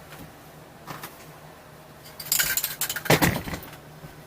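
Duplicolor clear-coat aerosol can being handled: a short hissy burst about two seconds in, then a few sharp rattling knocks.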